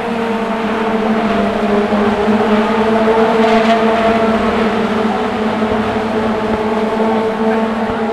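A pack of Honda Civic race cars running on the circuit, the engine noise of several cars swelling over the first few seconds and then holding steady.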